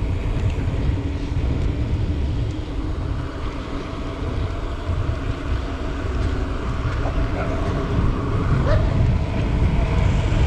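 Steady low wind rumble on a handlebar-mounted action camera's microphone as a mountain bike rolls fast down an asphalt road.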